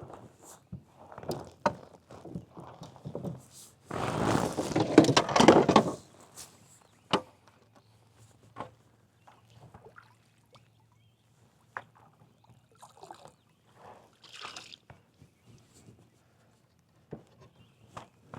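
A fish splashing in the water at the side of a kayak as it is landed, with one loud burst of splashing about four seconds in lasting some two seconds. Scattered knocks and clicks against the kayak come before and after.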